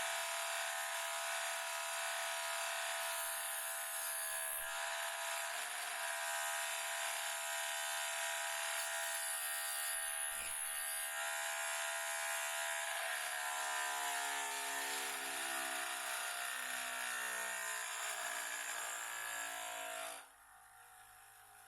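Small high-speed electric power tool motor whining steadily. Its pitch sags over the last several seconds, then it cuts off abruptly near the end.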